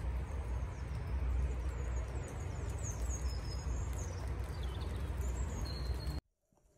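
Outdoor woodland ambience: small birds chirping in short, high, falling notes over a loud, uneven low rumble and hiss. It cuts off suddenly about six seconds in.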